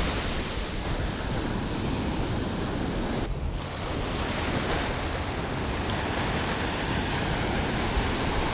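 Ocean surf washing up the sand in a steady rush, with wind buffeting the microphone. There is a brief lull a little after three seconds in.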